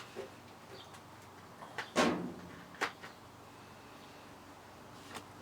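A few short knocks and clicks of handling, the loudest about two seconds in with a short ring after it, with quieter taps before and after it.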